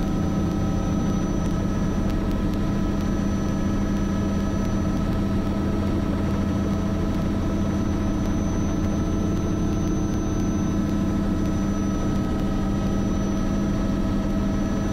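Bell 206 JetRanger helicopter's Allison 250 turboshaft engine and rotor running steadily while hover-taxiing. It is an even drone with a thin, high turbine whine over it.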